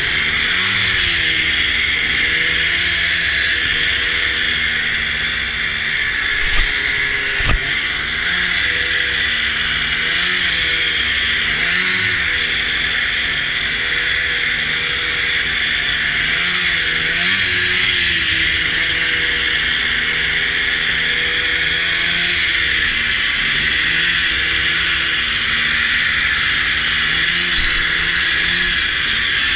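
Snowmobile engine running under changing throttle, its pitch rising and falling every second or two, heard from on board over a steady high hiss. Two short knocks come about seven seconds in.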